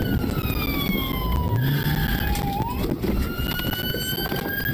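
Police siren wailing: its pitch falls slowly, sweeps back up a little over halfway through and climbs again, over a low rumble of engine and road noise.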